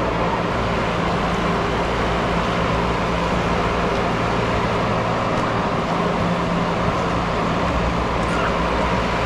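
Steady vehicle noise: a constant low engine hum under an even rush of road noise.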